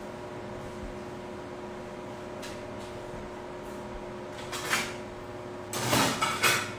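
A steady electrical hum, then two short bursts of scraping or rustling handling noise near the end, the second louder and longer.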